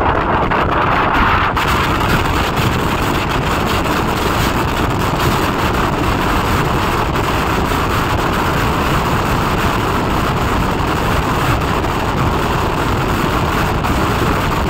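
Farakka Express passenger train running at speed, a steady loud rush and rumble heard from on board, with wind buffeting the microphone.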